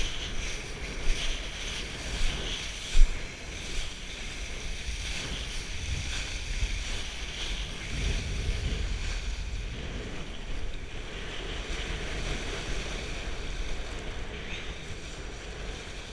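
Wind buffeting the microphone while a kiteboard skims over choppy water, a steady rushing rumble. There are three sharp knocks within the first three seconds.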